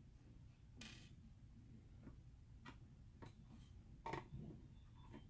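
Near silence with a few faint, short clicks and a brief rustle from the drone's circuit board, wires and plastic shell being handled. The loudest click comes a little after four seconds in.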